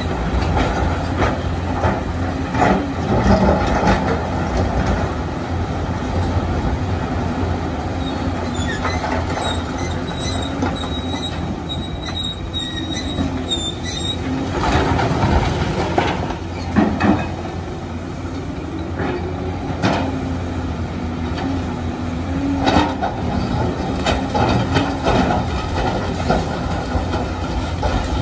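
Volvo crawler excavator's diesel engine running steadily under load as the bucket scrapes and prises rock, with rocks knocking and clattering throughout. A thin high squeal runs for several seconds in the middle.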